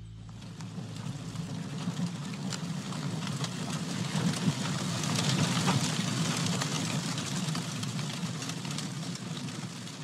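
Campfire burning: a steady low rumble with many small crackles and pops, swelling a little in the middle.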